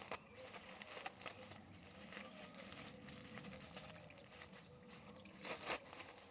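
Packaging being handled and unwrapped by hand: irregular rustling, crinkling and small crackles and taps.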